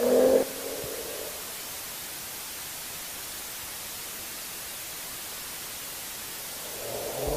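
Steady, even hiss of recording noise with no engine heard. A V6 engine note cuts off suddenly about half a second in, and engine revving comes back near the end.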